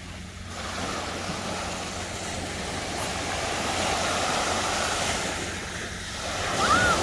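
Sea waves washing onto the shore: a continuous rushing surf that swells through the middle, eases briefly, and builds again. A short high call rises and falls near the end.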